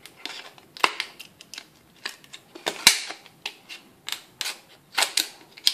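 Scissors snipping through the thin plastic of a drink bottle's neck, trimming it flush around the cap: a run of sharp, irregular clicks and crackles, sometimes two or three close together.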